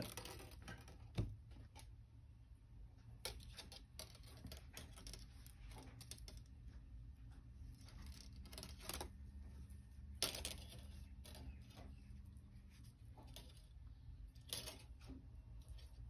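Faint, scattered clicks and light ticks of fine copper wire being pulled through and wrapped around a wire bracelet connector, the loudest about ten seconds in, over a low steady room hum.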